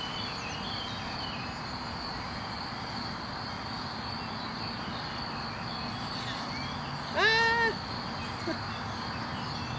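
Insects chirring steadily in a meadow, a continuous high-pitched buzz. About seven seconds in comes one short voiced call from a person, a brief half-second sound that rises slightly in pitch.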